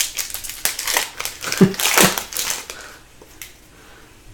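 Foil wrapper of a hockey card pack crinkling as it is torn open and crumpled, loudest about two seconds in, then stopping.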